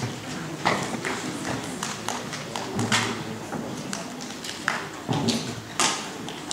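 Irregular knocks, clicks and shuffling, with faint murmuring voices in a hall; no music is playing yet.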